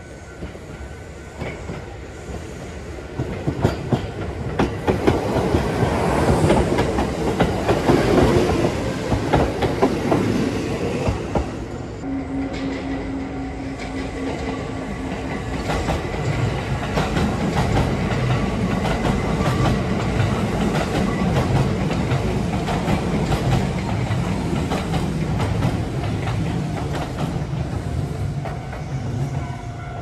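Kintetsu electric commuter trains running past on the tracks, wheels clattering over the rail joints. The clatter builds and is loudest from about four to twelve seconds in, then gives way to a steadier low rumble as a train passes close by.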